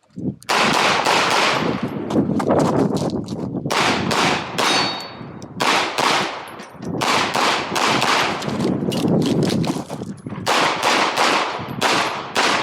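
A 9 mm KMR Spectra pistol firing a course of fire: fast strings of shots, pairs and longer runs, separated by short pauses for movement or reloads, with brief ringing after some shots.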